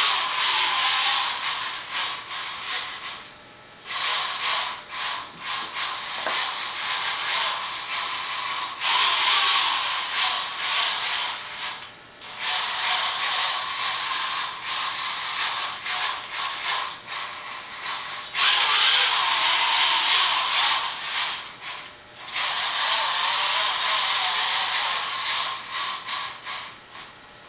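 Electric drive motors of a five-foot self-balancing robot whirring and grinding in spurts as the wheels speed up, slow and reverse to keep it upright, their whine rising and falling in pitch. The noise drops away briefly a few times.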